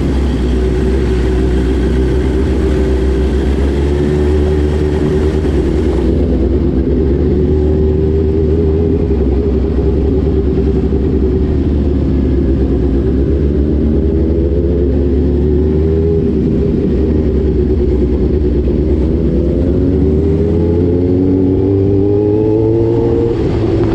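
Motorcycle engine running under way, its pitch rising and falling with the throttle and climbing steadily near the end as it accelerates.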